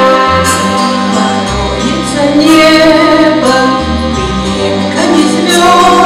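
A woman singing into a microphone over instrumental accompaniment with a steady bass line.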